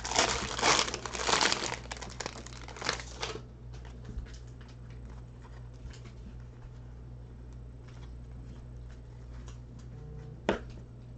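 Plastic wrapper of a trading-card pack crinkling as it is torn open and pulled off, for about three seconds. Then only faint, scattered ticks of the card stack being handled, with one short louder click near the end.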